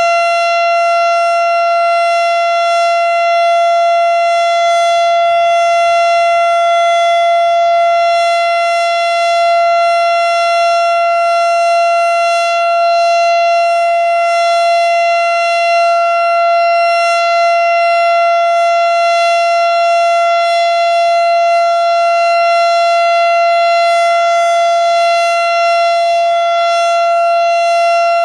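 Federal Signal STH-10 outdoor warning siren sounding the full-alert signal: a loud, steady tone held at one pitch, without rising or falling.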